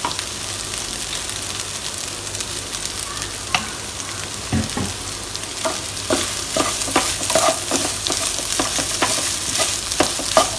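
Flaked fish, onion and ginger frying with a steady sizzle in a nonstick pan while a spatula stirs and tosses it. Short scraping clicks of the spatula against the pan come thick and fast from about halfway in.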